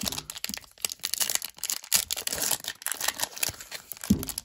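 Foil wrapper of a Panini Chronicles football card pack being torn open, with many irregular crinkles and crackles as the foil is pulled apart.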